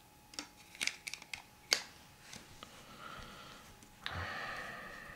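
Handling of a Nokia Lumia 925 smartphone: several small sharp clicks as its side buttons are pressed while trying to power it on, then a short rustle about four seconds in as the phone is lifted in the hand.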